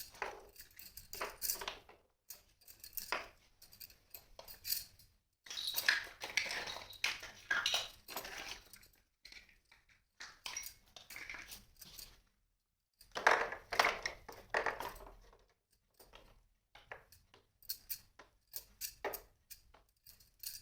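Small plastic toy kitchen pieces handled and unpacked: clacking, tapping and rustling in short bursts, broken by brief silent gaps.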